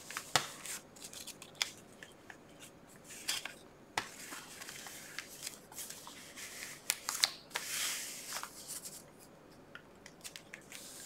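Paper pages of a handmade journal being pressed flat, rubbed by hand and turned: light rustling and crinkling swishes with small ticks and taps, one longer rustle near the end.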